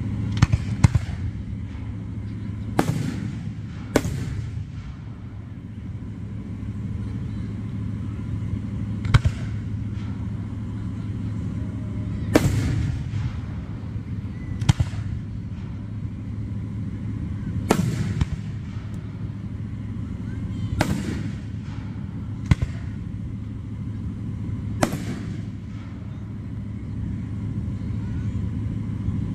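Aerial firework shells bursting with sharp booms, about a dozen at irregular intervals of one to five seconds, some trailing off in a brief echo, over a steady low background rumble.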